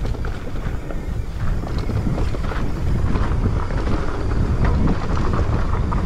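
Mountain bike descending a dirt singletrack at speed: wind buffeting the microphone as a steady rumble, with scattered rattles and clicks from the bike and tyres over the bumps.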